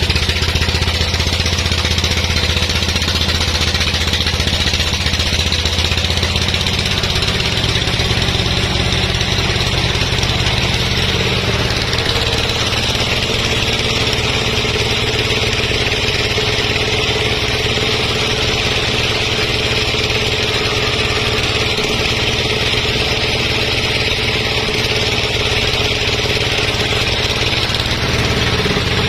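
Sawmill engine running steadily under a constant high hiss. Its low note changes about seven seconds in.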